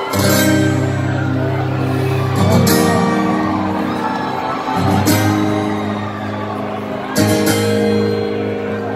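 Live rock band playing a song, heard in the arena: sustained chords that change about every two and a half seconds.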